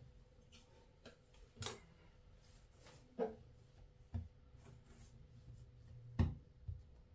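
Quiet handling sounds of hands shaping a piece of bread dough on a work surface, with several short knocks and taps against the table, the loudest a little after six seconds in.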